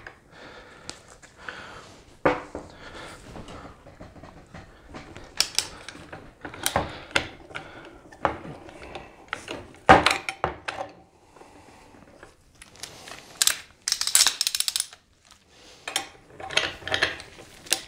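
Steel crowfoot wrench on a torque wrench clinking against an AR-15 barrel nut, with the wrench ratcheting as the nut is tightened toward 32 foot-pounds. Scattered sharp metallic clicks run throughout, with a quick rattling run of clicks about 13 to 15 seconds in.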